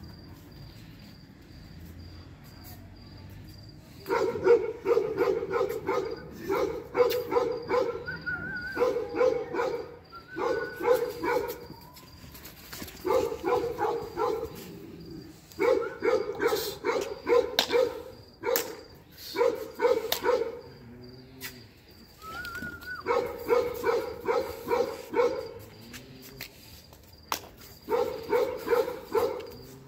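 Tibetan mastiff barking in quick runs of several barks a second. The barking starts about four seconds in and comes in bursts of one to two seconds with short pauses between them.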